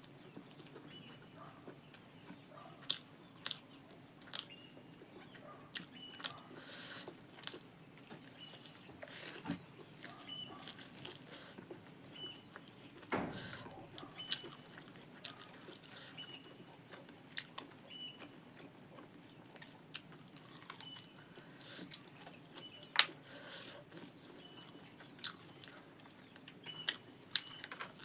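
Close-miked mouth sounds of a person eating rice and pork: chewing with scattered sharp, wet clicks and smacks, one or two a second.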